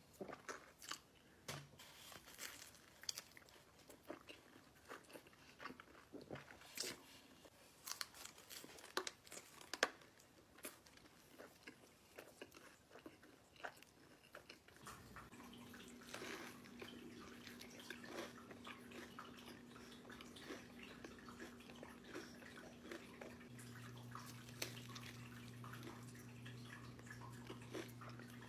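Close-miked eating: crunchy bites and chewing, many short crisp crackles. About halfway a steady low hum comes in under the chewing.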